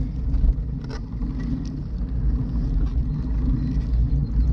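Steady low rumble of wind on the microphone and tyre noise from riding along an asphalt trail, with a faint click about a second in.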